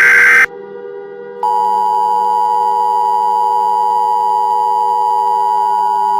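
An Emergency Alert System SAME header data burst, a harsh buzzing warble, cuts off about half a second in. About a second later the steady EAS attention tone begins and holds. A low steady drone runs underneath.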